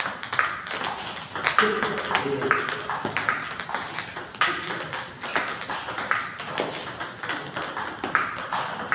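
Table tennis balls clicking off bats and bouncing on the table in quick, steady succession: multiball feeding, one ball hit from a basket after another and returned across the table.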